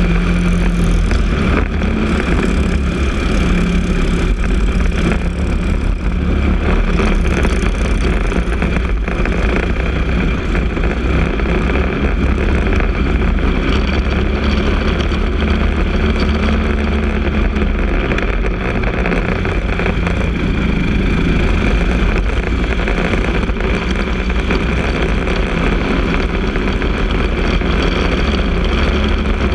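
Briggs & Stratton LO206 kart engine, a single-cylinder four-stroke, running hard at racing speed, heard from on board the kart. Its pitch rises and falls as the kart speeds up and slows through the corners.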